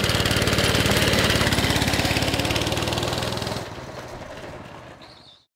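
A go-kart's small single-cylinder gasoline engine running steadily as the kart drives away. It fades into the distance over the last two seconds, then cuts off abruptly.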